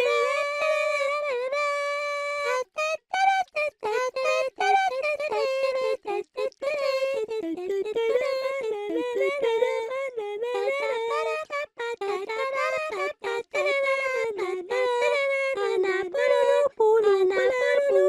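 A girl's high, cute anime-style voice singing a melody, its notes moving up and down with short breaks between phrases; about half a second in she holds one steady note for roughly two seconds.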